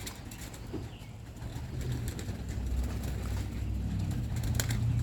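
Young homing pigeons cooing in and around their loft, over a steady low rumble that grows stronger after about two seconds, with a few short clicks near the end.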